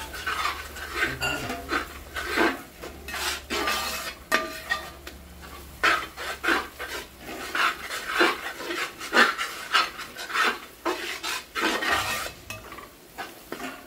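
A spoon stirring and scraping a thick masala gravy in a cooking pan, knocking against the pan in irregular strokes about one or two a second.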